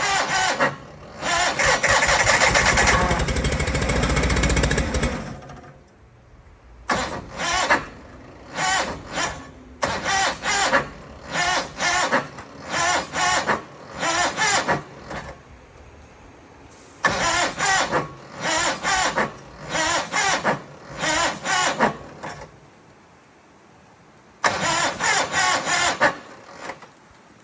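John Deere 318 garden tractor's two-cylinder Onan engine cranked by its starter in deep cold. One long crank of about five seconds is followed by many short bursts of cranking, and it never catches: a failed cold start at six below zero.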